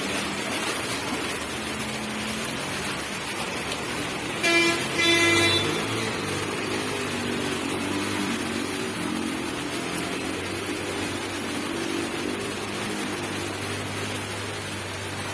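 Steady hiss of rain and water over a flooded street, with vehicles running through the floodwater and a low engine hum. A vehicle horn sounds twice in quick succession about four and a half seconds in, the loudest sounds.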